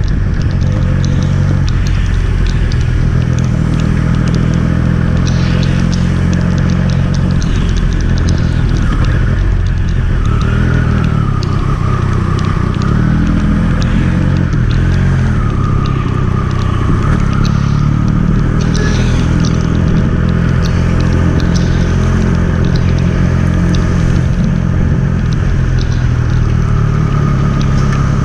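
Triumph Speed Triple 1200 RS's inline three-cylinder engine running as the bike is ridden, its revs rising and falling several times around the middle.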